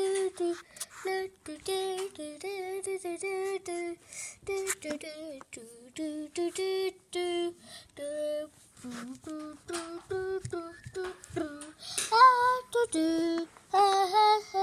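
A high voice singing a wordless tune in short notes, mostly on a few repeated pitches; it goes higher and louder about three-quarters of the way through.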